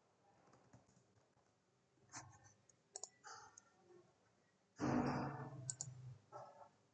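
A few quiet computer keyboard keystrokes and mouse clicks, then, about five seconds in, a longer breathy sigh close to the microphone, the loudest sound.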